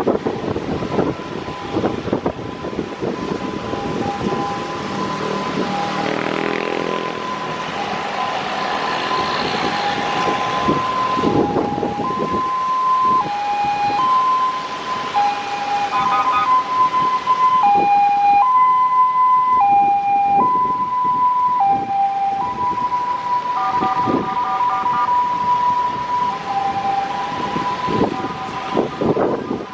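Police escort's two-tone siren sounding a steady hi-lo wail, switching between its two pitches about once a second, over passing motorcycle and car traffic.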